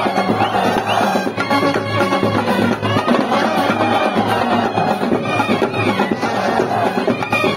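Street brass band playing: trumpets and other brass carry the tune over busy, continuous drumming on hand-carried drums.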